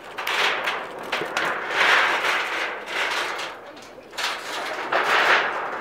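Noise of a crowd of onlookers, many voices mixed together, swelling and fading every second or two.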